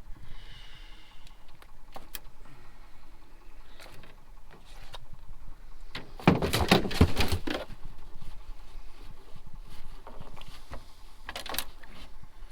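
Knocks and clatter of a small channel catfish being handled into a fish box on a boat: scattered clicks, then a loud burst of thumping and rattling about six seconds in lasting over a second, and another short rattle near the end.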